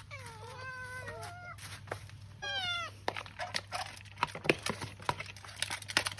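A cat meowing twice, a long drawn-out meow and then a short one, followed by a run of quick irregular clicks and smacks typical of a cat eating.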